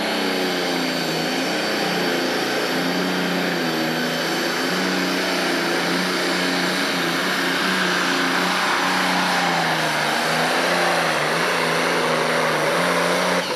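John Deere Pro Stock pulling tractor's turbocharged diesel engine running flat out under full load as it drags the weight sled down the track. It is a loud, steady drone whose pitch wavers only slightly.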